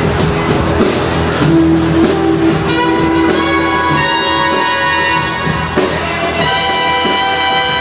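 Loud performance music: a beat with drums that gives way, about three seconds in, to long held chords.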